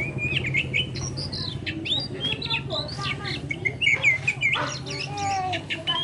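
Oriental magpie-robin singing: a quick run of varied short chirps and whistles. A steady low hum runs beneath and fades about five seconds in.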